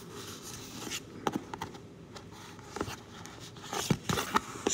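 Fingers working open a tight folded cardboard card package: scattered small clicks, scrapes and rustles of the cardboard flaps, with a cluster of sharper clicks about four seconds in.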